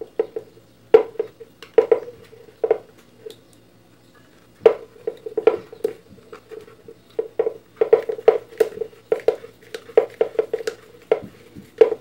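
Hard plastic clicking and knocking as an Arno blender's motor is pressed and worked down to seat it in its plastic base, the hollow housing ringing briefly after each knock. A few separate clicks come first, then a quicker irregular run in the second half.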